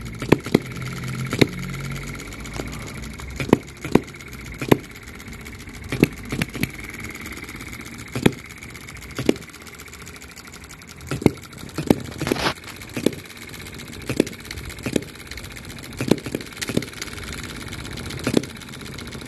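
OKMO B01 3.4 cc four-stroke petrol hit-and-miss model engine running on its governor: sharp firing pops come about once a second, sometimes in pairs, with the flywheels coasting between them. The firing is not regular, but it is fairly regular for a hit-and-miss engine.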